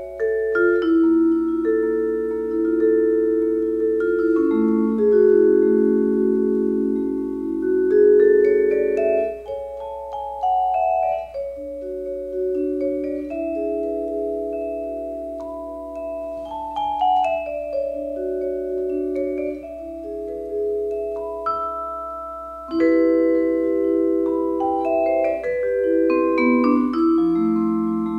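Instrumental background music: sustained, overlapping chords with a melody above them, the notes ringing on after each strike.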